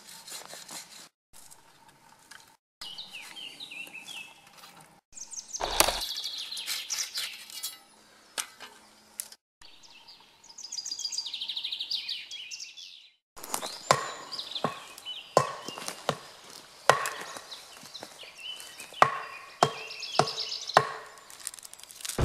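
Birds chirping, then from a little past halfway a quick series of sharp axe blows into wood, about one to two a second.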